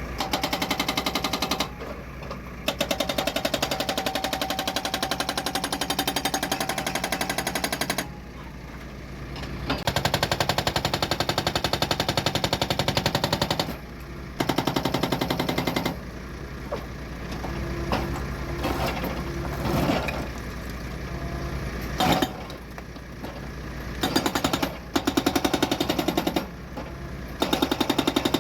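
Excavator-mounted hydraulic breaker hammering rock in rapid bursts of one to several seconds, with the excavator's engine running between bursts.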